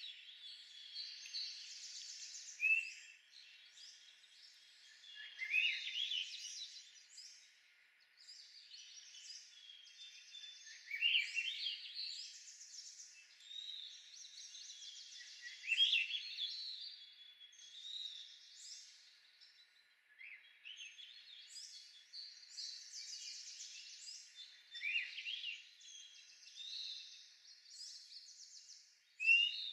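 Songbirds singing: a steady high twittering chorus with a louder rising phrase every few seconds.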